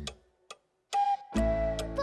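Children's song backing music with clock-like ticks. It drops out almost to silence for about half a second, with a single tick in the gap, then comes back about a second and a half in with a bass line and a gliding tone.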